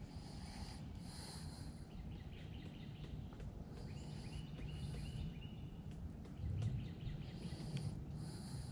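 Faint outdoor ambience by a pond: a steady low rumble, with a short run of small bird chirps about four seconds in and brief high buzzing now and then.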